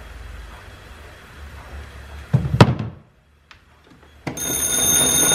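A single thump a little past halfway, then a sudden start of ringing bells on an antique wall-mounted magneto telephone as its crank is turned to call the operator, several steady ringing tones holding on.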